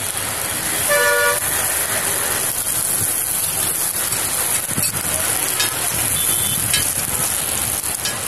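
A vehicle horn toots once, briefly, about a second in, over steady street noise and the hiss of sandwiches sizzling in oil on a hot flat griddle. A few light metal clicks of a spatula on the griddle follow in the second half.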